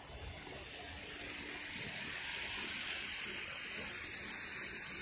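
Water rushing and splashing steadily over rocks into a garden pond, growing louder.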